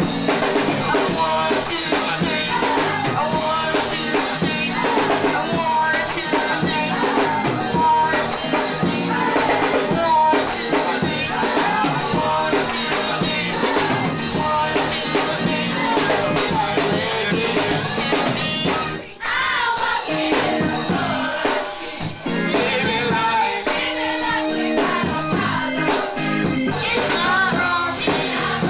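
Youth gospel choir singing with a live band and drum kit. The music dips briefly about two-thirds of the way through.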